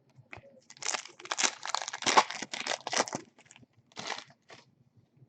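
Wrapper of a trading-card pack being torn open and crinkled, a dense run of crackling for a couple of seconds, then two shorter crinkles.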